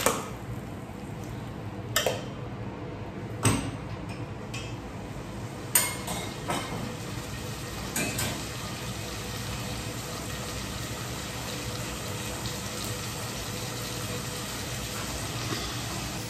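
Onions and tomatoes frying in a pan with a steady sizzle, while a utensil stirring them knocks against the pan about six times in the first eight seconds; then the sizzle goes on alone.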